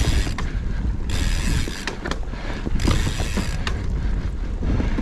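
Mountain bike rolling over a forest dirt trail: steady rumble of tyres and drivetrain, with a few sharp rattling knocks. A high hissing buzz comes and goes in stretches of about a second, three times.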